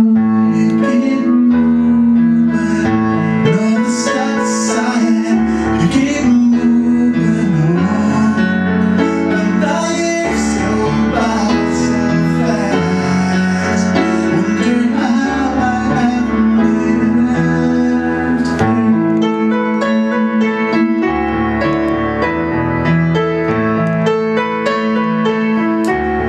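Pop music led by keyboard, sustained chords over a held low note.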